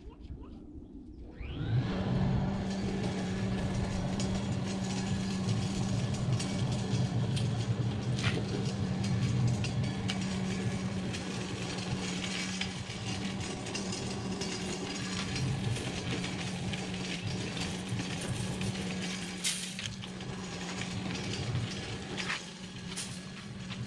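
An engine starts up about a second and a half in and then runs steadily, with a few faint clicks over it.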